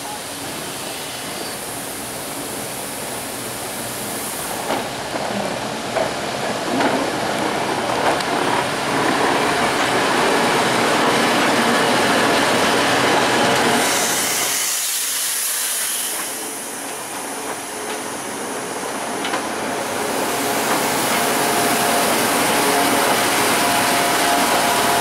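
Manitou and Pikes Peak cog railway railcar approaching on the rack track and drawing alongside, its running noise growing louder with scattered clicks and clanks from the running gear. About halfway through there is a burst of hiss and the sound drops away briefly, then the railcar runs on steadily close by.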